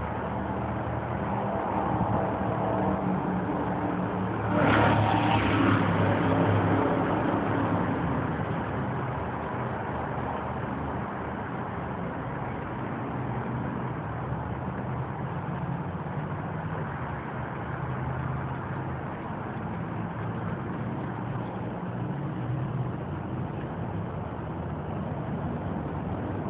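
Road traffic running steadily with engine hum. About five seconds in, a vehicle passes louder and fades away over a few seconds.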